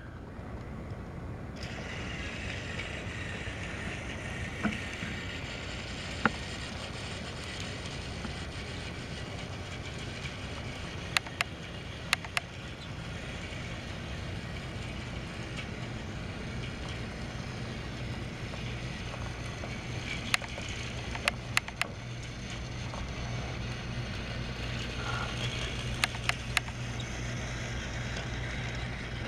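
Battery-powered Trackmaster toy train running along plastic track, its small electric motor giving a steady whirr that grows a little louder near the end. About a dozen sharp clicks sound at intervals over it.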